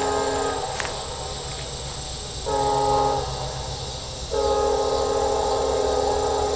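Norfolk Southern diesel locomotive's multi-chime air horn: one blast ends early, a short blast follows about two seconds in, then a long blast starts near the middle and holds, the closing short-and-long of a grade-crossing signal, over the low rumble of the passing train.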